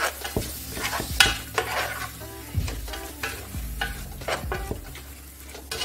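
A spoon stirring minced meat and onions frying in oil in a stainless steel pot, scraping against the pot in irregular strokes over a steady sizzle.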